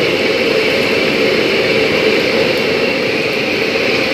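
Commercial gas wok burner running with a steady, loud rush while tilapia fries in oil in the wok.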